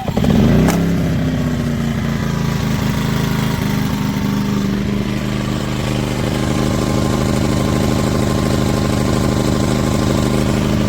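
ERAYAK 2400W portable inverter generator's gasoline engine pull-started with its recoil handle, catching at once and surging briefly, then running steadily with the choke still set to start.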